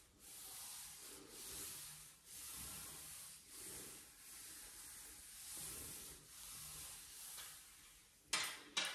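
Palms rubbing back and forth over the surface of a finished cardboard jigsaw puzzle, a soft swishing that swells and fades about once a second. Two short sharp knocks come near the end.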